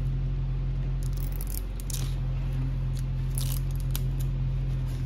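Fingers handling a plastic moisturizer tube at its cap, making a few short scratchy rustles and clicks, over a steady low hum.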